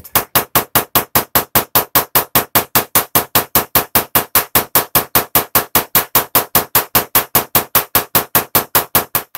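Solid-state Tesla coil firing pulsed spark discharges from its toroid: a loud, rapid buzzing crackle of about five sharp bursts a second, the arcs striking the tinsel on a small Christmas tree.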